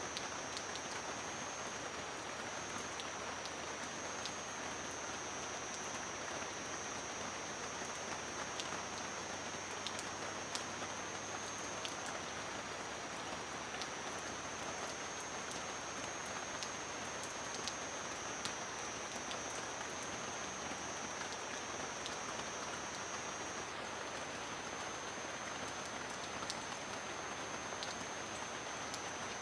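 Steady rainfall with scattered sharp drip ticks, under a steady high-pitched whine.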